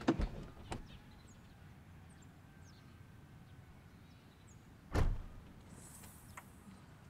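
A car's front passenger door is unlatched and opened with a few clicks at the start, then shut with one heavy thump about five seconds in.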